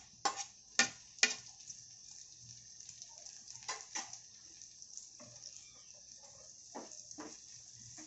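Onions and freshly added chopped tomato sizzling in hot oil in a frying pan, a steady hiss. A few sharp taps in the first second or so as the tomato is tipped in, then occasional knocks and scraping from a wooden spatula stirring in the pan.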